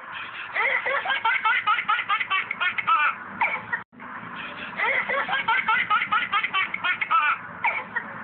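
Dubbed-in sound effect of babies laughing and giggling in quick, bouncing bursts, played twice in a row with a short break just under four seconds in; it starts and stops abruptly and sounds thin.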